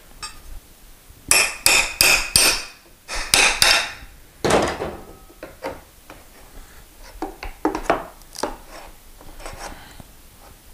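Wrench used as a hammer on a steel pry bar wedged under a stair tread's nose: a run of sharp, ringing metal-on-metal clanks in two quick groups. These are followed by a short crunch and lighter knocks as the wooden nose is worked loose.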